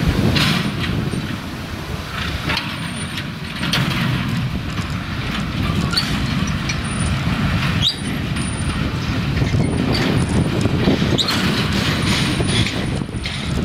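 Train of peat wagons rolling slowly on narrow-gauge field railway track: a steady low rumble with repeated clanks and knocks from wheels and couplings, and several short rising wheel squeals.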